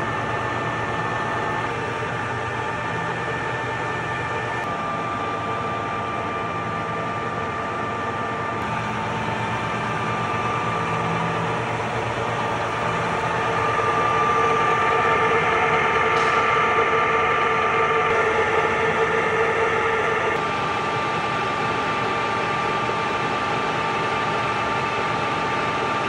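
Colchester Mascot 1600 gap bed lathe running with no load, its spindle and chuck turning. The headstock gears give a steady whine of several tones. It grows louder about halfway through, then drops back about two-thirds of the way in.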